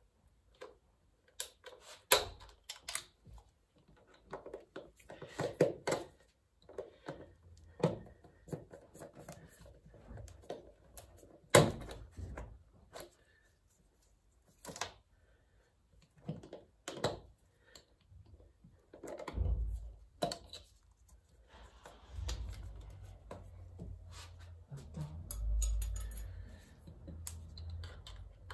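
Hand tools and metal engine parts being handled: irregular sharp clicks, clinks and knocks, with a few dull low thumps in the second half.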